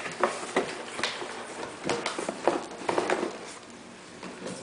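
Hands rummaging in a white plastic carrying case and handling its contents: irregular light knocks and clicks with some rustling, dying down near the end.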